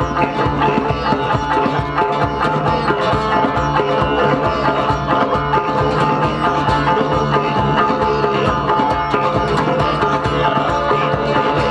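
Acoustic guitar music with hand percussion keeping a steady beat.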